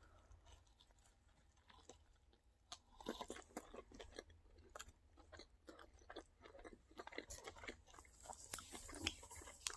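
Faint chewing of a mouthful of burger: soft, irregular wet clicks and crunches, a little busier near the end as another bite is taken.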